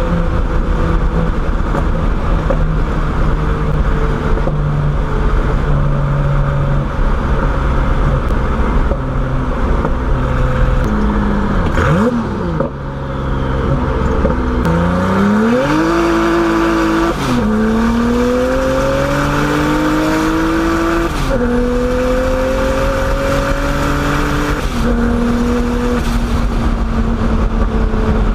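Turbocharged BMW E30's engine running at steady speed, then revving briefly and pulling hard through the gears. The pitch climbs and drops sharply at each of three upshifts.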